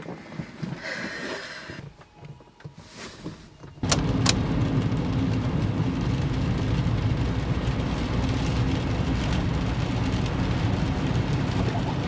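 Faint rustling in a quiet parked Kia Ray as a seatbelt is buckled. About four seconds in, this gives way suddenly to steady road and engine noise heard inside the car as it drives on a wet road in rain.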